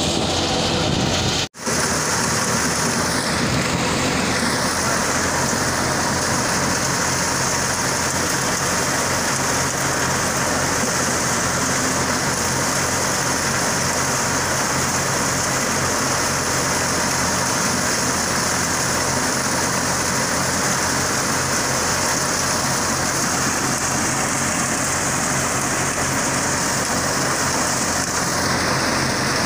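Thresher running steadily as whole dry chickpea plants are fed into its hopper: a constant loud rushing rattle of straw and pods through the threshing drum over the low hum of the machine. The sound cuts out for an instant about a second and a half in.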